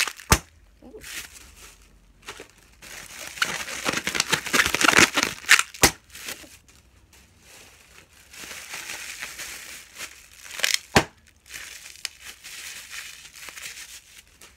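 Clear plastic packaging crinkling and crumpling as it is squeezed and worked in the hands, in irregular stretches, with three sharp snaps along the way.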